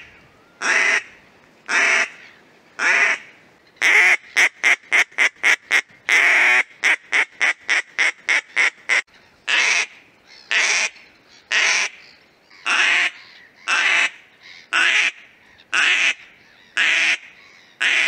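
Duck call with a Mylar reed, 3D-printed, being blown in a sequence of quacks. It gives three spaced quacks, then a fast run of about seven short quacks, one longer quack and a second fast run. After that come single quacks about once a second.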